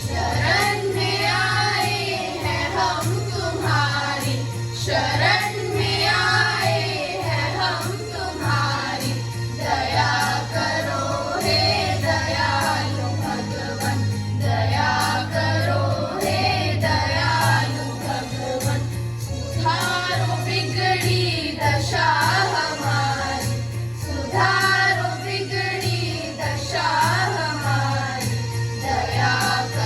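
A group of schoolchildren singing a prayer in chorus over a steady low instrumental accompaniment.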